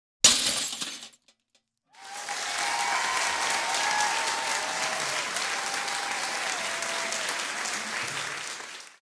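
A wine glass wrapped in a sleeve is stamped on and shatters under the groom's shoe: the traditional glass-breaking that ends a Jewish wedding ceremony. After a second of quiet, guests clap and shout for about seven seconds, and the sound cuts off abruptly.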